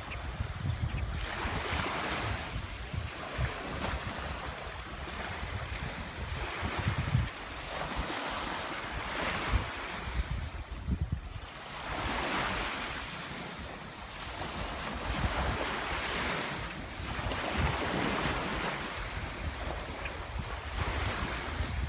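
Ocean surf breaking and washing ashore, swelling and fading every few seconds, with wind buffeting the microphone.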